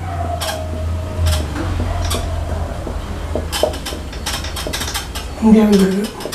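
Marker pen writing on a whiteboard: a squeak lasting about a second near the start, then scratchy strokes and small taps of the tip on the board.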